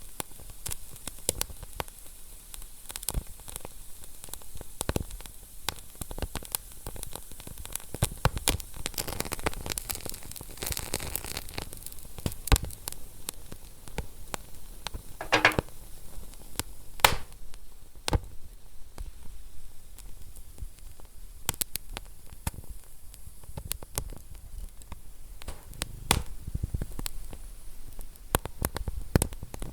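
Wood fire in a fireplace crackling: a steady soft hiss with many small irregular clicks and a few louder sharp pops near the middle.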